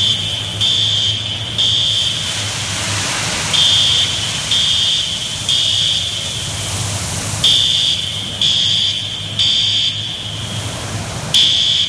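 Fire alarm sounder beeping in groups of three with a pause between groups, the temporal-three evacuation signal that goes with the foam system's discharge. Under it is a steady rush of high-expansion foam pouring down from the ceiling foam generators.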